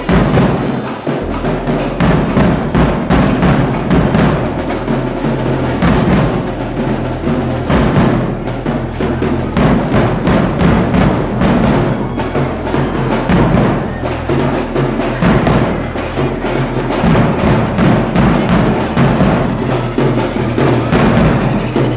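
Marching band drums playing: bass drums and other percussion beating a loud, fast, dense groove without a break.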